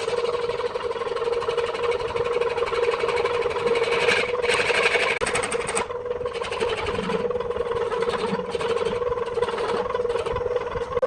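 Wood lathe running with a steady motor hum, under a rough, hissing noise that swells and fades as the work goes on.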